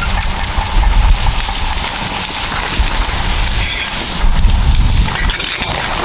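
Caterpillar bulldozers dragging an anchor chain through scrub: diesel engines running under load beneath a dense crackle and snapping of brush and timber being torn down.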